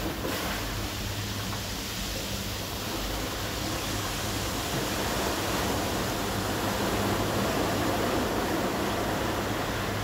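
Ocean surf breaking and washing up a pebble beach, heard from inside a sea cave: a continuous rush of water that swells slowly and peaks near the end, with a steady low hum underneath.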